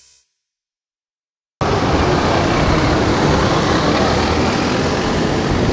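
Loud, steady outdoor street noise, a dense rumble and hiss like road traffic, that cuts in suddenly about a second and a half in after a moment of silence.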